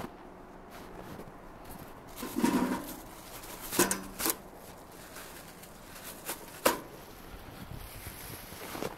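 Handling sounds at a dog-waste bag dispenser: a rustle and a few sharp clicks and knocks as a plastic bag is pulled from it, spaced by quiet stretches.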